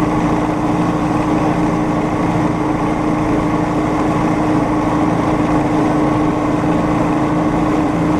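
Small engine of a homemade rail speeder running at a steady pitch while the cart rolls along the track.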